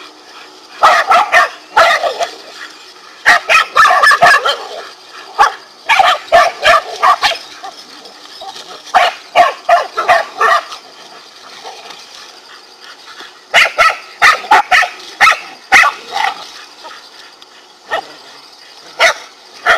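Dogs barking in rapid volleys of sharp barks and yips, with short pauses between, as they attack a king cobra.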